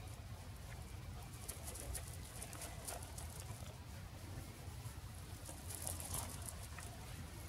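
Shiba Inu puppy's paws crunching on gravel as it runs: a faint patter of small scattered ticks, thickest in two stretches, over a steady low rumble.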